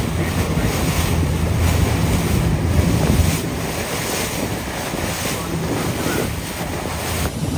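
Speed boat running fast across open sea: a low engine drone under rushing, splashing spray off the hull, with heavy wind buffeting the microphone. The low drone is strongest for the first three seconds or so, then eases.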